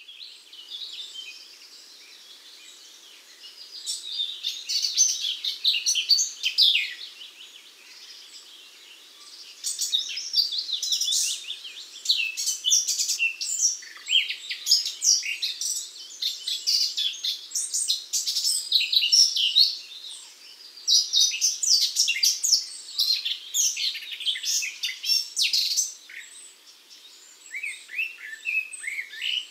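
Many small songbirds chirping and singing together in a dense chorus of quick, high chirps and trills. It is fainter for the first few seconds and dips briefly twice.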